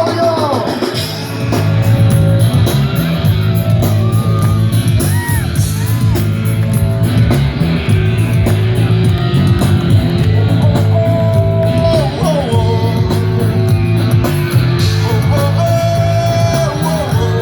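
Live band playing, with a steady bass line and guitar, and voices singing and shouting over it.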